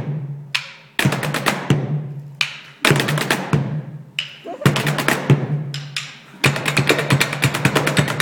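Stage percussion played with drumsticks on metal-framed chairs and a shoulder-slung pail drum: quick rattling rhythms in short phrases broken by brief pauses, ending in a fast, dense run of strikes.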